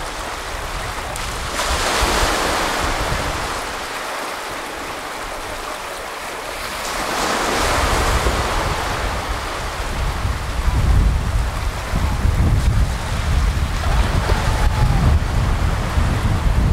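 Small waves breaking and washing up a sandy shore, with the hiss of the surf swelling about two seconds in and again about eight seconds in. Wind buffets the microphone with an uneven low rumble through the second half.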